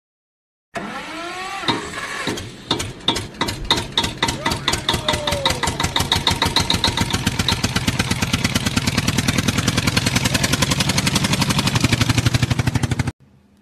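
An engine starting up and running. Its beats come slowly at first, then speed up to a rapid, even chug of about eight a second, which cuts off suddenly near the end.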